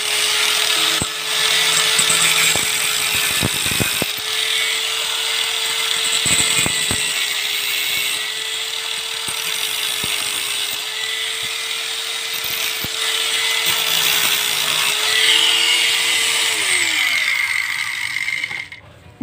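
Angle grinder fitted with a thin steel-cutting disc, cutting through a piece of steel: a steady motor whine with the harsh grinding of the disc on metal. Near the end the grinder is switched off and its motor spins down with falling pitch.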